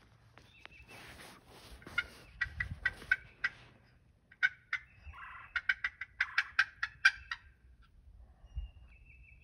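Turkey yelping in runs of short, sharp notes, the last run quickening to about six notes a second. A few soft scratchy rustles come before it.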